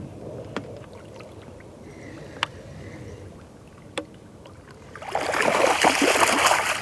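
A few light clicks over a low murmur, then about five seconds in a loud burst of water splashing that keeps on crackling: a hooked fish thrashing at the surface as it is brought in.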